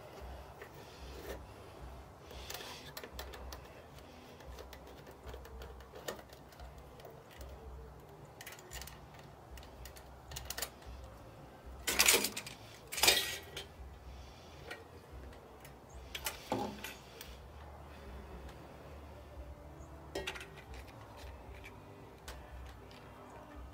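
Light metallic clicks and clinks of a motorcycle turn signal's chrome trim ring and lens being worked off by hand, with two louder sharp clacks about halfway through as the ring comes free.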